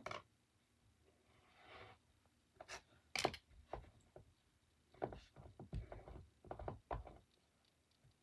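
Faint handling sounds of clay-working: tools and clay pieces tapped and set down on a worktable, with a soft brushing rub about two seconds in. A few scattered taps come around three seconds in, then a quicker run of them from about five to seven seconds in.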